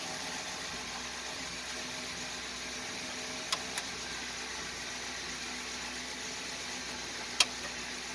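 1941 Dodge WC truck's engine idling steadily, heard from inside the cab. Three sharp switch clicks from the dash stand out: two close together about three and a half seconds in, and a louder one near the end.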